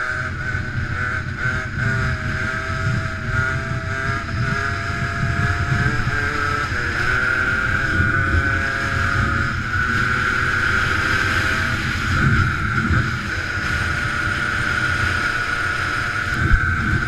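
Small two-stroke dirt bike engine under way, its pitch climbing and dropping as the rider works the throttle and gears in the first half, then holding steadier. Wind buffets the helmet-mounted microphone.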